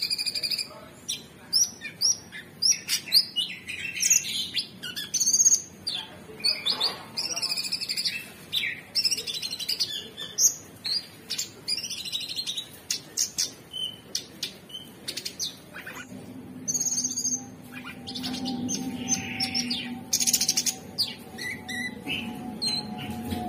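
Orange-bellied leafbird singing a rapid, varied string of high chirps, trills and whistles. A low steady hum comes in about two-thirds of the way through.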